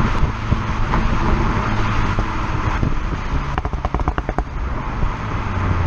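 A Seat Leon Cupra 300's turbocharged 2.0-litre four-cylinder, heard at the tailpipe through its stock exhaust without a particulate filter, driven in Cupra mode. Midway, on the overrun, the exhaust lets out a rapid string of pops and crackles lasting about a second, from the mode's programmed overrun misfire. Near the end the engine pulls again, with wind and road noise underneath.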